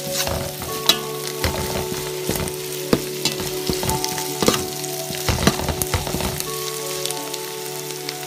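Sliced onions, green chillies, curry leaves, ginger and garlic sizzling in hot oil in a metal pan while being sautéd until the raw smell of ginger and garlic goes. A utensil stirring the pan makes frequent scrapes and clicks, which stop about six and a half seconds in, leaving the steady sizzle.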